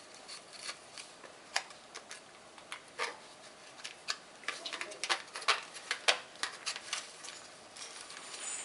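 Irregular light clicks and taps of a plastic socket base being handled and the wires pushed through it, with a brief scratchy rustle near the end.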